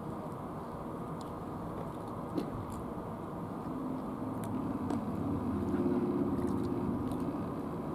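A passing motor engine hums, swelling from about four seconds in to a peak and fading again near the end, over a steady low rumble. A few faint clicks come through on top.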